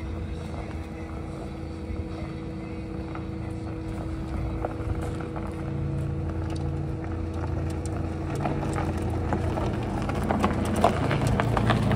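Pininfarina Battista electric hypercar rolling slowly across a gravel car park toward the microphone. Its tyres crunch on the loose stones with a steady low hum under them. The crunching grows louder over the last few seconds as it comes close.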